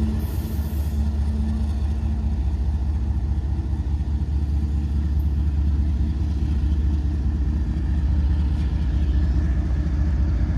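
Union Pacific diesel-electric locomotive running with a steady low engine drone as it moves away along the track.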